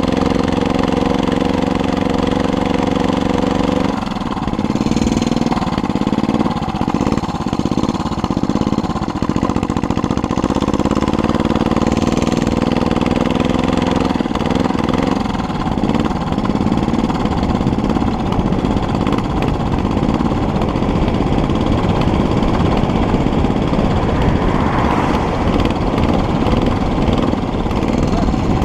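Small engine of a homemade motorized bicycle running steadily, then about four seconds in it turns rougher and its pitch climbs slowly for some ten seconds as the bike pulls away, settling into a dense, noisy run for the rest.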